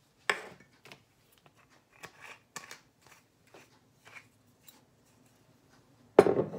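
Handling a glass olive oil bottle: a knock, then a run of small clicks and scrapes as the cap is screwed on, and a louder knock near the end as the bottle is set down.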